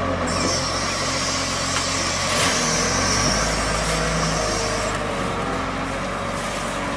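Volvo wheel loader's diesel engine running steadily as the loader raises and tips its bucket over a truck trailer.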